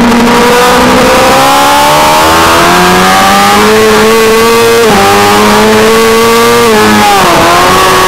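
600 cc race motorcycle engine at high revs under full throttle, its pitch climbing steadily, stepping down once at a gear change about five seconds in, then falling sharply near the end as the bike slows for a corner. A constant rush of noise runs underneath.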